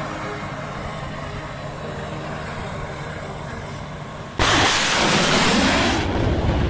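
Surface-to-air missile launched from a wheeled air-defence missile vehicle: a sudden, very loud rush of rocket motor about four and a half seconds in, lasting about a second and a half, then easing into a lower roar as the missile climbs away. Before the launch, a steady background rumble.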